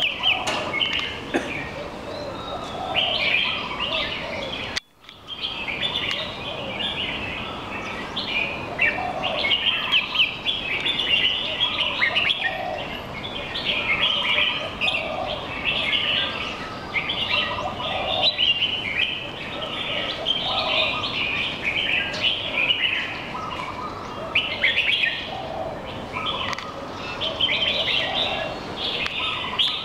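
Caged songbirds singing and chirping almost without pause, several phrases overlapping, with a brief break about five seconds in.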